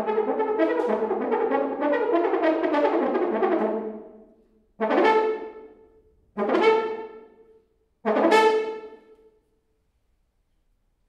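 French horn played solo: a quick run of notes for about four seconds, then three separate loud notes on the same pitch, each dying away. Silence near the end.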